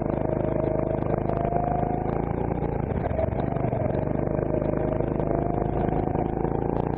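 Rental go-kart engine running at low revs through a slow corner, its pitch wavering and then creeping up near the end as the kart starts to accelerate out.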